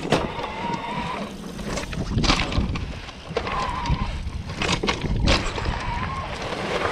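Shimano Steps E8000 e-bike mid-drive motor whining in short stretches as the rider pedals with assist, over the steady rumble of tyres on dirt and grass. Several sharp clatters of the bike jolting over bumps, about four in all.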